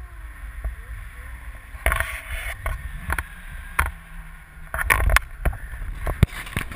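Wind rumbling over a GoPro in flight under a tandem paraglider, with irregular knocks and rubs as the hand-held camera pole is swung round, busiest near the end.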